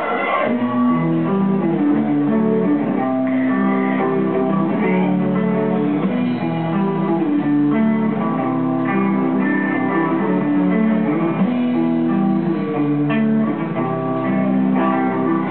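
Guitar music: strummed chords ring out and change about every second, at a steady loud level.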